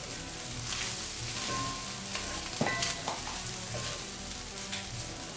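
Minced chicken sausage frying in oil in a skillet with a steady sizzle, being stirred, with a few sharp scrapes and knocks of the utensil against the pan.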